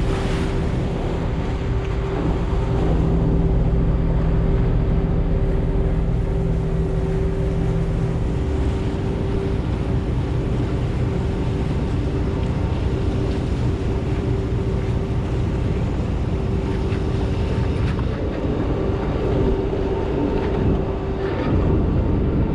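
Engine of a large party fishing boat running steadily under way, with wind on the microphone; its low engine note drops away about eight seconds in while a steady hum remains.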